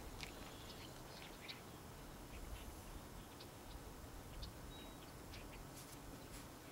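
Faint outdoor background hiss with scattered short, high chirps and ticks from small birds, and one brief thin whistle about four and a half seconds in.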